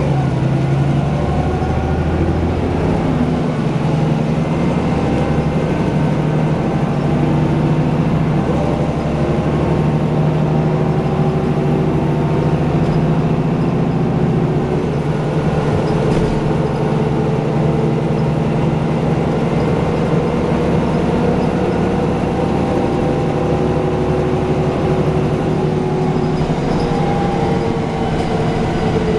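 MAN NG363F articulated city bus heard from inside the passenger cabin while driving: a steady engine and drivetrain hum over road noise, with a few tones gliding slowly up and down as the bus changes speed.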